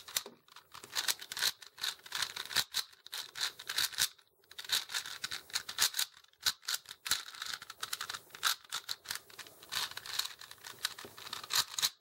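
A 4x4 Rubik's Cube being turned quickly by hand: rapid, irregular clicks and clacks of the plastic layers turning, with a short pause about four seconds in.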